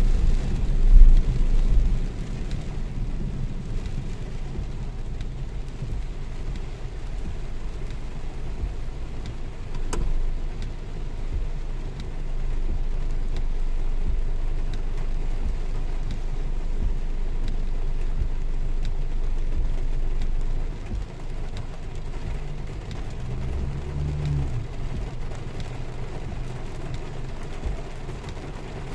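Car cabin while driving in heavy rain: a steady low road and engine rumble under the hiss of rain on the car's body and windshield. There is a loud bump about a second in and a short sharp click later.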